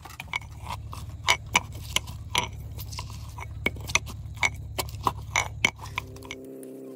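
Chillies being pounded with a metal pestle in a steel tumbler: irregular sharp knocks, two or three a second, over a low rumble, stopping about six seconds in.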